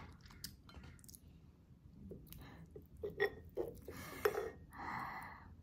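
Close-miked chewing of beef rib meat, with wet mouth clicks and smacks clustered about three to four and a half seconds in. A short breathy sound comes near the end.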